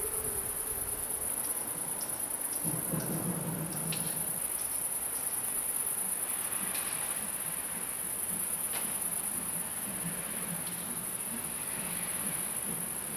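Crickets chirping steadily in a continuous high-pitched trill, with a faint low hum coming in about three seconds in.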